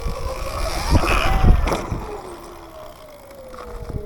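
A small motorbike's motor whines up in pitch as it accelerates, then winds down, over heavy wind rumble on the microphone. A few knocks come from the bike about one to two seconds in.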